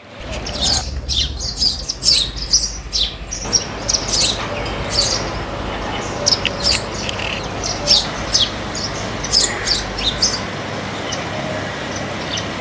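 Small backyard birds chirping: many short, high chirps in quick succession, thinning out after about ten seconds.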